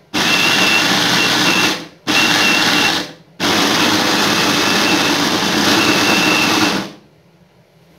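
Electric blender grinding a wet spice paste of shallots, garlic, red chilli and tomato with oil, run in three bursts. Two short runs are followed by a longer one of about three seconds, which stops about seven seconds in.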